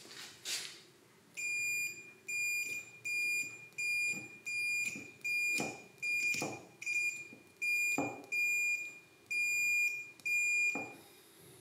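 Continuity beeper of a multimeter sounding about a dozen times, short high half-second beeps in steady succession, with a few light taps among them. These are the continuity checks on a freshly rewound drill armature: each beep means a closed circuit through the winding between the contacts being probed.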